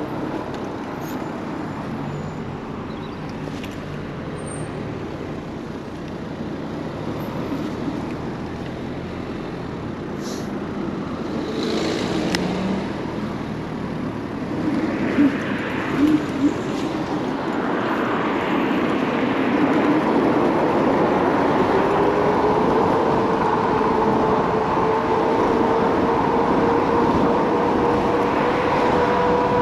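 Kaabo Wolf King GT electric scooter on the move: a steady rush of wind and tyre noise, then the motor's whine rising in pitch as the scooter speeds up and holding steady over the last third. A few short loud sounds come about halfway through.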